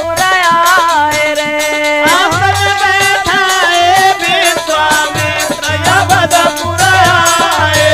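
Holi folk song music: a sliding, ornamented melody over dholak drumming and steady rattling, jingling percussion.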